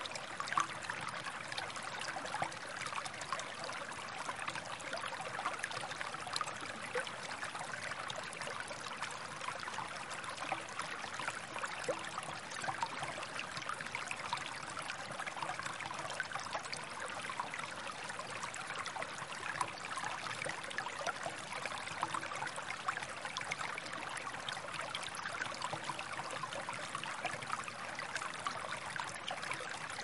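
Shallow, clear stream flowing over a sandy bed and around stones: a steady trickling babble, flecked with many tiny splashes.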